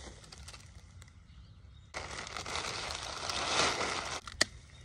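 Black plastic trash bag rustling and crinkling as a cut leafy plant is stuffed into it, starting about two seconds in and lasting about two seconds. A single sharp click comes near the end.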